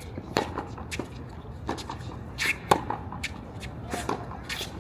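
Tennis balls struck by racquets and bouncing on a hard court: about eight sharp pops at uneven intervals, with shoes shuffling on the court.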